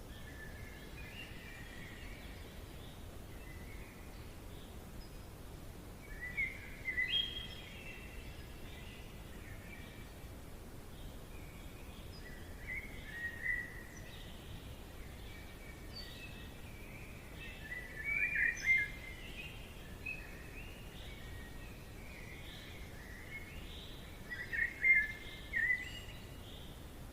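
A bird singing short, chirping phrases about every six seconds over a steady low background hiss of forest ambience.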